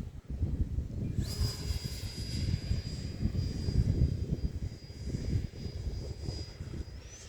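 Electric ducted fan of a Habu STS RC jet on 6S power whining in flight: a steady high whine that begins about a second in and rises in pitch near the end. Gusty wind rumbles on the microphone throughout.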